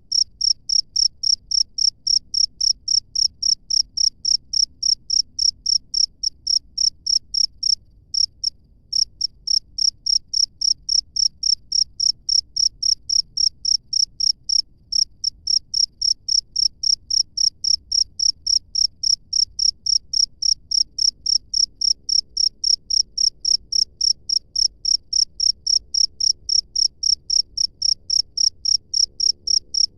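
A cricket chirping loudly and steadily, about three high chirps a second, pausing briefly about eight seconds in.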